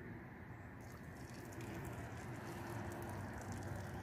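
Hot water from a samovar pouring into a teapot over linden flowers, a faint splashing hiss that picks up about a second in.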